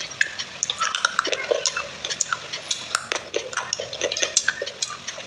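Broken pieces of clay pot clinking and knocking against each other and a glass bowl of wet clay paste. It comes as a quick, irregular run of small sharp clicks.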